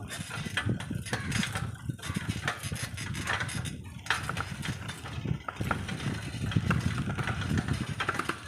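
Road noise while riding along a narrow road: a steady low rumble with frequent irregular knocks and rattles.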